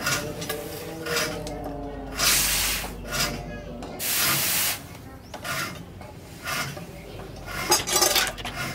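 Hot steel knife blade plunged into a trough of water to quench it, hissing in several short bursts as it goes in.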